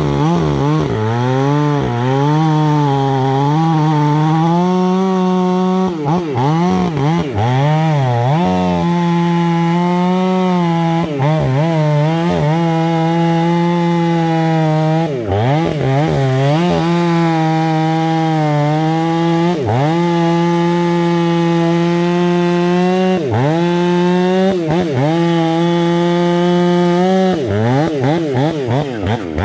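Stihl 500i fuel-injected two-stroke chainsaw running at full throttle, cutting into a wooden stump with a square-ground semi-skip chain. Its engine pitch sags briefly and picks back up every few seconds as the chain bites. Near the end the throttle is let off and the engine note drops away.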